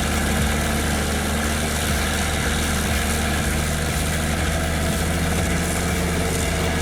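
Pezzolato wood chipper's Cat C9 diesel engine running at a steady speed, a constant drone with a low hum and no change in pitch.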